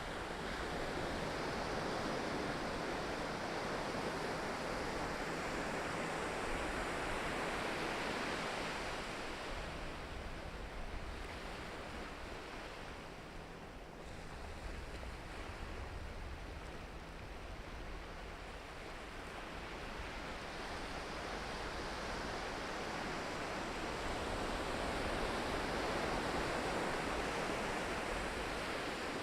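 Sea waves breaking and washing on the shore, with two broad swells of surf, one at the start and a second building near the end, and a quieter lull in between.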